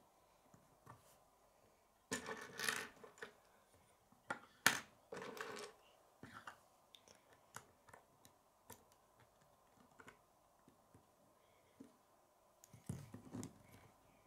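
K'nex plastic rods and connectors clicking and rattling as they are handled and snapped together, in scattered clicks with a few short bursts of rattling and one sharp snap about a third of the way in.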